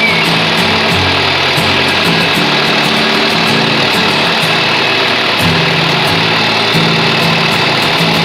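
Background music with a steady beat and a stepping bass line, over an engine running steadily underneath.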